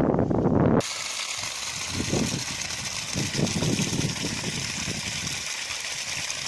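Wind buffeting the microphone for about the first second, cut off suddenly, then a steady rushing of water gushing from the discharge pipe of a 3 hp solar-powered pump.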